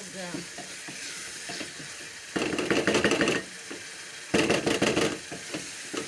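Stirring a sizzling tomato-and-spice stew base in a cooking pot: two loud spells of scraping and clattering, each about a second long, about two and four seconds in, over a steady low sizzle.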